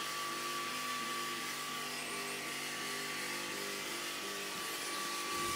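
Diode laser engraver running a job: a steady hiss from the laser head's cooling fan and a small pump, with a thin steady whine, and the stepper motors whining on and off as the head moves.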